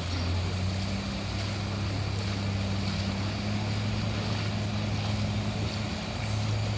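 A small engine running steadily with a low hum, its pitch stepping up slightly near the end.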